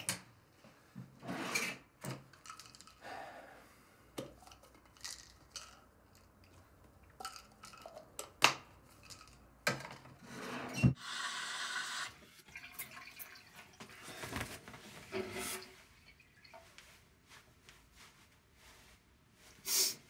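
Small objects being handled by hand: scattered light clicks and knocks, with a brief rustle about halfway through.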